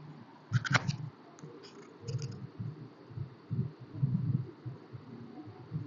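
Sewing machine stitching a fabric waistband in short, irregular spurts, mixed with fabric rustling and a few clicks.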